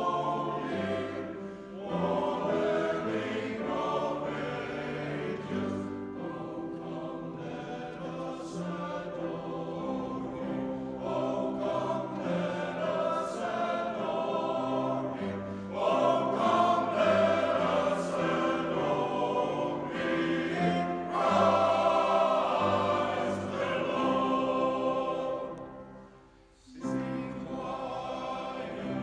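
Male voice choir singing with piano accompaniment in a cathedral. Near the end the music briefly falls almost silent, then the singing starts again.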